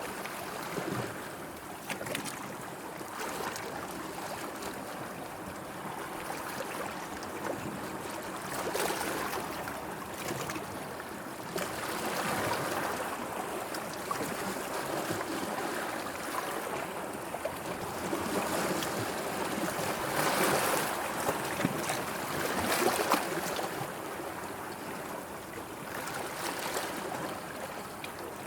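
Sea water washing and lapping in slow swells, rising and easing every few seconds, with the strongest surges about two thirds of the way through.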